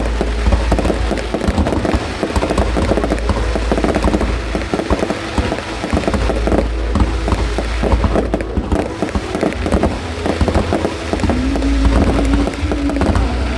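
Fireworks going off in dense, rapid succession: many overlapping bangs and crackles over a deep rumble, without let-up.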